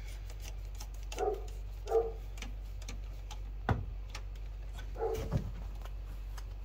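Irregular light clicking of a screwdriver turning the ground screw in a metal electrical box, with a dog giving a few short barks in the background.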